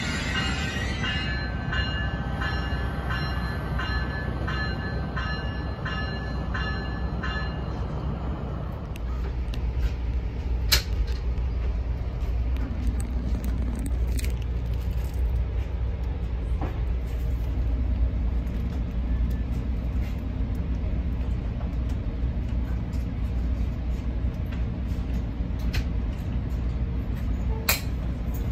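Pacific Surfliner passenger train: a bell rings in an even, repeating rhythm for the first several seconds, then gives way to the train's steady low rumble, broken by a few sharp clicks.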